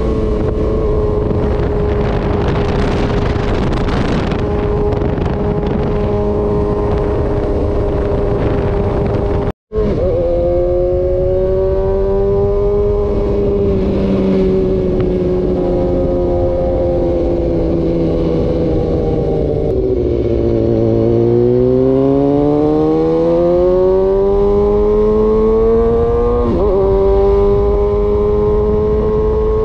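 Big sport motorcycle engine running under way, with wind and road rush. Its note holds steady, drops around twenty seconds in, then climbs again as the bike accelerates and settles. The sound cuts out for an instant about ten seconds in.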